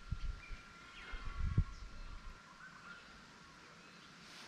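Birds chirping faintly in the background. In the first two seconds there are a few low thumps and knocks, the loudest about one and a half seconds in.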